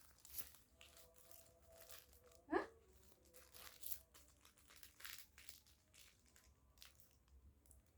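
Faint, intermittent crinkling and tearing of plastic parcel packaging being handled and opened, in short scattered rustles, with one brief rising squeak about two and a half seconds in.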